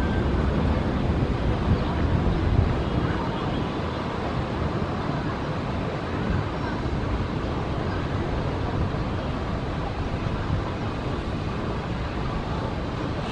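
Airbus A321-231 jet engines at takeoff thrust on the takeoff roll and lift-off, heard from a distance as a steady dense noise, a little louder in the first few seconds, mixed with wind on the microphone.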